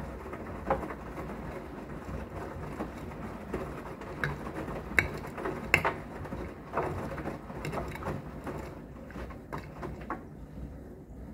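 Blomberg front-loading washing machine drum turning on the rinse of a synthetics cycle: wet laundry and water sloshing and dropping inside, with irregular splashes and knocks over a steady low hum. A dishwasher running a self-clean cycle sounds in the background.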